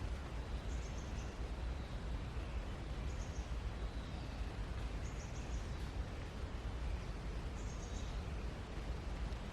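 Outdoor ambience: a steady rushing background noise, heaviest low down, with a small bird's short high chirp of three or four quick notes repeating four times, every two to three seconds.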